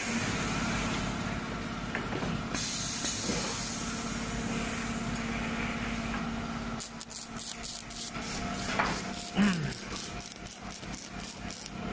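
CNC glass protective film laminating machine running with a steady hum and hiss. From about seven seconds in, a rapid ticking of roughly five clicks a second starts as the blue protective film is laid onto the glass.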